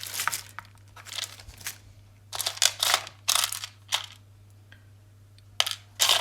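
Rummaging through a box of salvaged electronic parts: irregular bursts of rustling and clinking of small components, with short quiet gaps between them. A steady low hum runs underneath.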